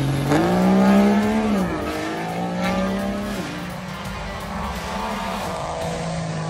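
A race vehicle's engine running at high revs. Its pitch jumps up just after the start, then drops back twice before holding steady, and it cuts off suddenly at the very end.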